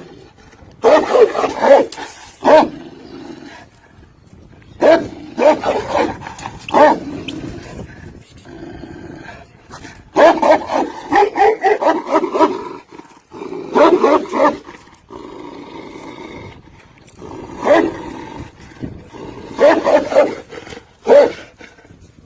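Large dogs barking and growling in repeated loud bursts of a second or two, with quieter gaps between.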